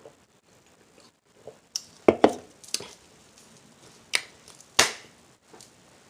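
About six short, sharp clicks and taps from drinking a Pepsi and handling its container. The loudest two come close together about two seconds in.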